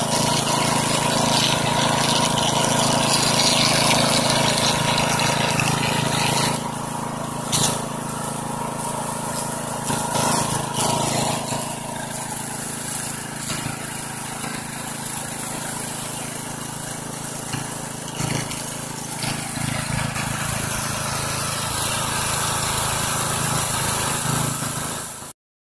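Small engine-driven water pump running steadily, pulling water up through the suction hose and nozzle and gushing it out of the discharge hose. It cuts off suddenly near the end.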